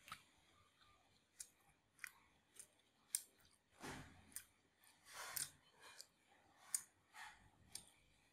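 Quiet close-up chewing of bánh tráng trộn, a Vietnamese mixed rice paper salad, with small sharp mouth clicks every half second or so. There are two longer, noisier crunches about four and five seconds in.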